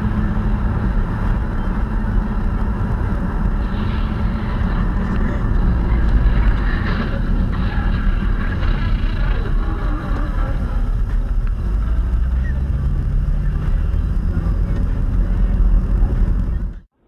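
Steady road and engine noise of a car driving at highway speed, heard from inside the cabin through a dashcam microphone, with a constant low hum throughout. It cuts off suddenly near the end.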